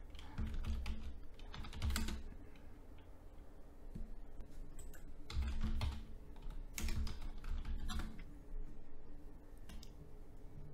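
Typing on a computer keyboard: irregular keystrokes in a few short runs with pauses between.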